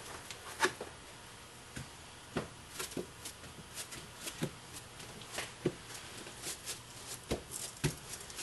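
Irregular light taps and crinkles of gloved hands handling a foam core on a plastic-sheeted layup table, several sharp clicks a second.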